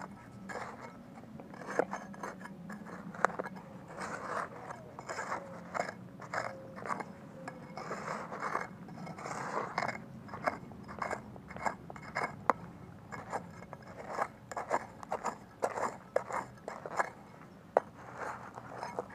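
A red-handled metal hand digger scraping and chopping into stony dirt around a buried can, in a quick, irregular series of scrapes and crunches.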